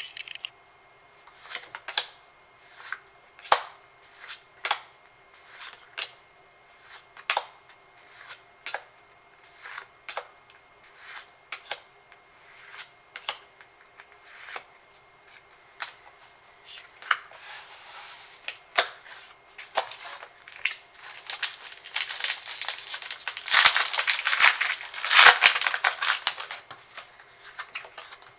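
Trading cards flipped one at a time through a stack, a crisp snap every half second to a second. About three quarters of the way in comes several seconds of dense crinkling and tearing, the loudest part, typical of a foil booster pack being torn open.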